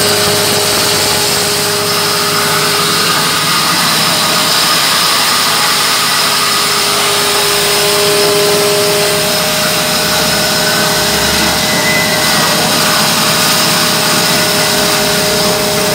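Electric disc mill grinding dry corn kernels into flour: a loud, steady motor hum with constant whining tones over the rush of the grinding.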